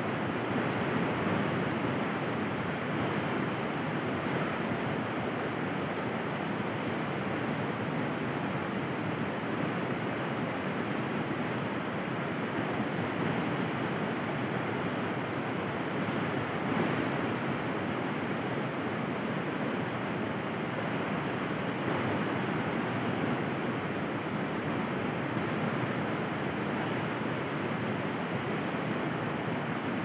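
River water flowing, a steady, unbroken rush.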